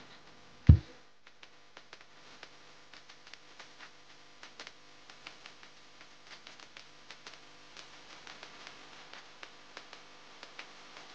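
Faint footsteps on a leaf-littered dirt forest path: soft irregular crunches and ticks from dry leaves and twigs underfoot. A single loud, low thump comes just under a second in.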